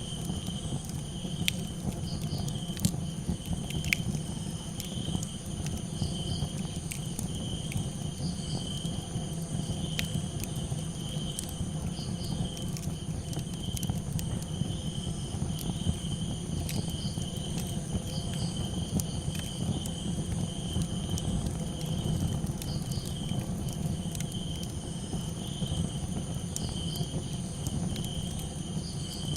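Crickets chirping in a steady pulsing chorus with high insect trills, over a crackling campfire with scattered sharp pops and a steady low rumble.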